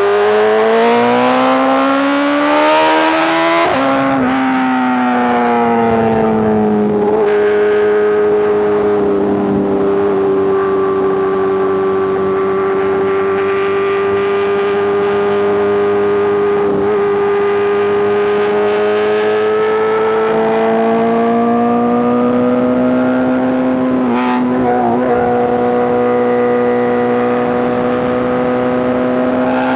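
BMW S1000RR's inline-four engine through a titanium exhaust, revving up under acceleration with a gear change about four seconds in. It then cruises at steady revs, rises again and changes gear near the end.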